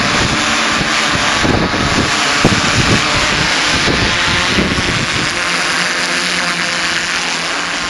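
Quadcopter electric motors and propellers buzzing steadily in flight, with wind rumbling on the microphone during the first five seconds or so.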